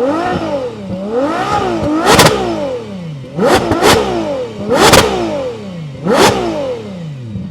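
Ferrari 12Cilindri's naturally aspirated V12 being revved hard several times, its pitch climbing and falling back each time, with sharp cracks at the tops of the revs.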